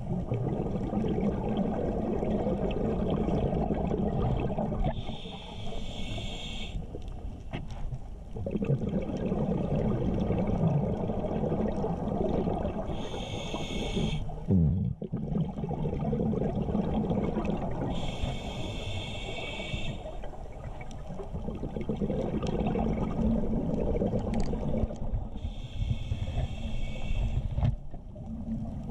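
Scuba diver breathing through a regulator underwater: four hissing inhalations, each one to two seconds long and coming every six or seven seconds, between long rumbling stretches of exhaled bubbles.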